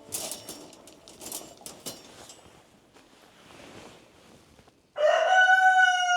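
A few scattered clicks and rustles, then about five seconds in a rooster starts crowing loudly, one long held call.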